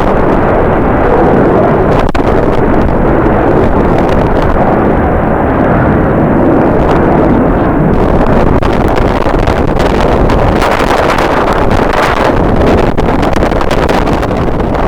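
Strong wind buffeting the microphone, mixed with the steady noise of jet airliner engines across the airfield.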